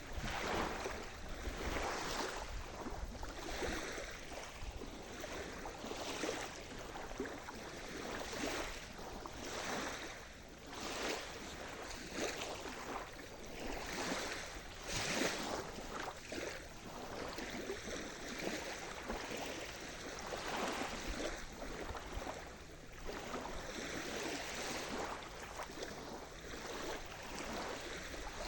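Ocean surf: waves breaking and washing in, one after another every second or two.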